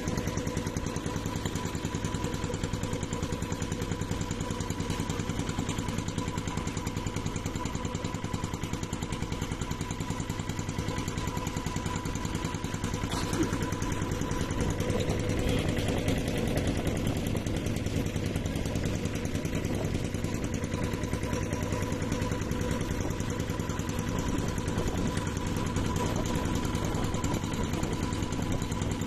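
A wooden riverboat's engine running steadily under way, with a fast, even beat, on a test run after the boat's restoration.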